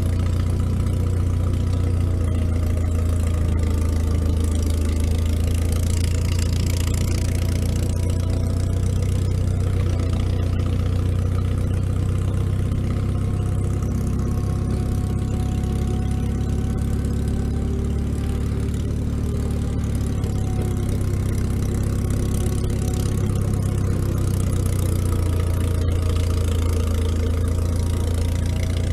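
International Harvester TD-6 crawler's diesel engine running steadily with a deep, even hum as the crawler travels along the trail.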